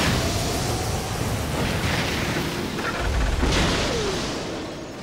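Anime sound effects of a blue-flame sword strike engulfing a dragon in fire: a steady rushing roar of flame with a deep boom about three seconds in, fading near the end, over background music.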